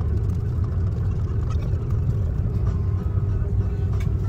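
Cabin noise of an Airbus A330-300 taxiing on the ground: a steady low rumble of engines and rolling wheels, with a constant hum.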